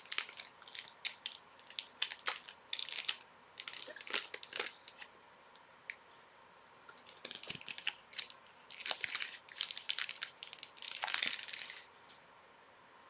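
Plastic wrapping on hockey card packs being torn open and crumpled: a run of short crinkling crackles that stops about a second before the end.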